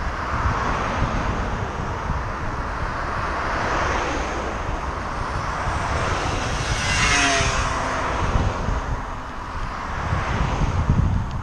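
Several cars passing on the adjacent road, the noise of each swelling and fading, the loudest and closest about seven seconds in with a falling pitch as it goes by. Under it, steady wind rumble on the microphone of the moving bicycle.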